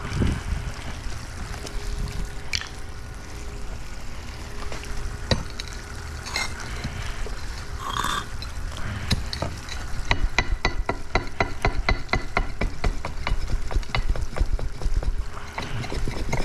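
Pavers being pried loose with a long-handled flat scraper: metal scraping and clinking against stone and grit, with scattered knocks at first, then from about ten seconds in a fast run of short scraping strokes, several a second.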